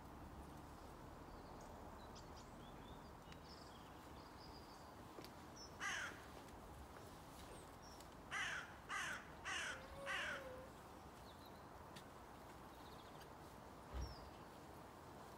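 A crow cawing over a quiet open-air background: one caw, then a couple of seconds later a quick run of four caws. Faint small-bird chirps come earlier, and there is a single dull thump near the end.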